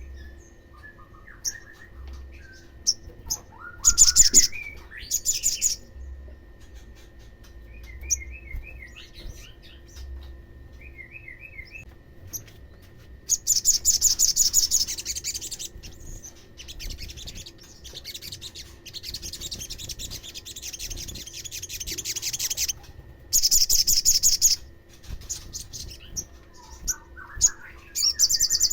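Olive-backed sunbird singing: repeated very high, rapid trills lasting a second or two, between scattered short lower chirps. A faint steady hum runs beneath.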